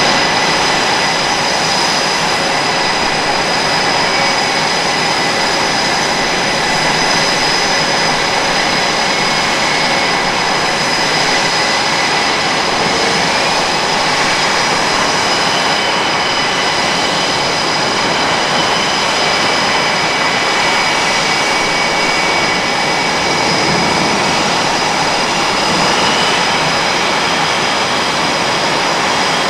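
Jet engines of Blue Angels F/A-18 Super Hornets, General Electric turbofans, running steadily: an even, loud jet noise with several steady high-pitched whines.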